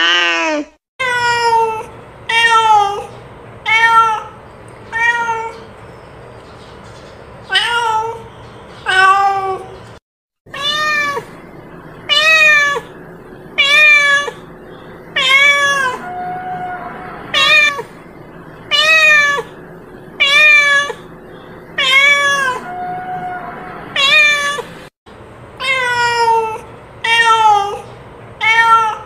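A cat meowing over and over: short calls, each rising then falling in pitch, about one every one to two seconds. A faint steady hum sits between the calls, and the sound cuts out briefly twice.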